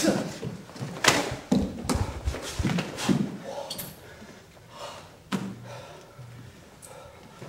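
Irregular thuds and slaps from karate sparring: blocks and strikes meeting arms and gloves, and bare feet stepping and landing on a wooden floor. Several hits come close together in the first three seconds, and another a little past five seconds.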